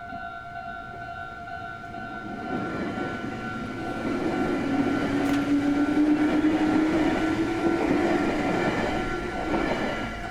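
Japanese level crossing's electronic warning bell ringing steadily while a train passes over the crossing. The train's running noise builds about two seconds in, is loudest in the middle with a low hum, and fades near the end.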